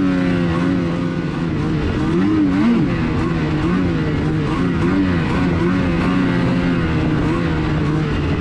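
Snowmobile engine running under way, its revs rising and falling, most markedly about two to three seconds in.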